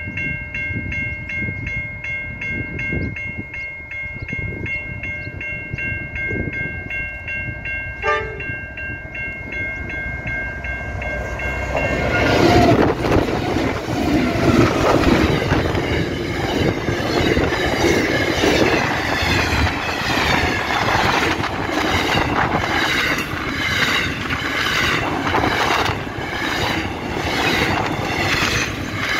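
Level crossing bell ringing with a steady pulsing chime. About 12 s in, a Pacific National freight train's NR-class diesel-electric locomotives pass close by and loudly. Double-stacked container wagons follow, their wheels clattering in a steady rhythm over the rail joints.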